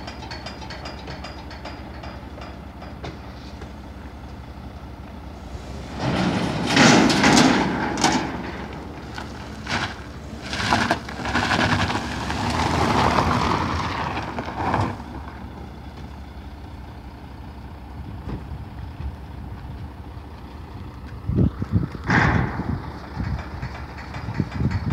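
A Hyundai sedan driving down the car carrier's steel loading ramps, with clanking and rumbling from about six seconds in for several seconds, over the steady idle of the carrier truck's engine. Near the end come a few sharp clangs of footsteps on the metal ramp.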